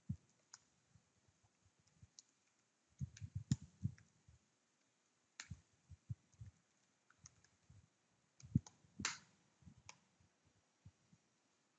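Faint computer keyboard keystrokes, scattered single clicks with a quick run of several about three seconds in and another few near nine seconds.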